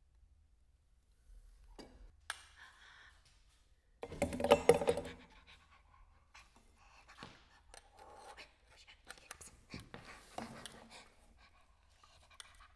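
A performer's heavy breathing and breathy vocal sounds, broken by scattered clicks and rustles, with one louder breathy burst lasting about a second, about four seconds in.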